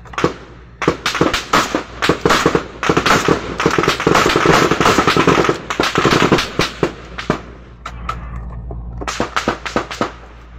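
Rifle fire in rapid, dense bursts for several seconds, a short lull about seven and a half seconds in, then more shots near the end.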